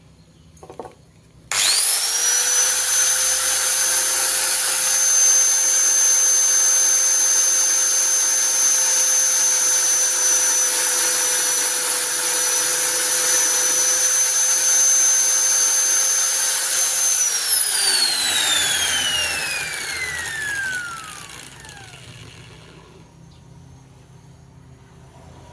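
Electric hand planer switched on, running steadily with a high whine, then switched off and spinning down with a falling whine about seventeen seconds in.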